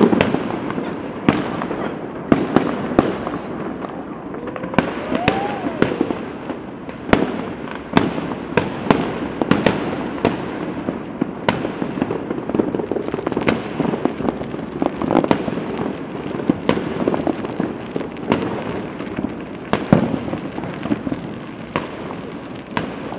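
Distant aerial fireworks bursting: irregular sharp bangs, at times several a second, over continuous crackling and rumble.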